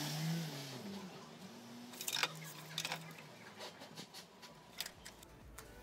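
Wooden board being handled and set on a miter saw table: a few sharp knocks, with a low hum that rises and falls at the start and comes back briefly in the middle.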